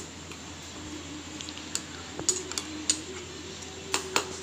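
A spoon stirring a wet garlic and dried-chilli paste in a steel mixer-grinder jar, clinking sharply against the jar several times: a few close together around the middle and two near the end, over a faint steady hum.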